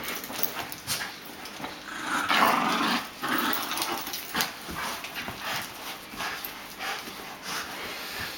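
A Jack Russell terrier and a golden retriever play-fighting over a toy, growling and scuffling, with many short sharp sounds. The loudest stretch comes about two seconds in.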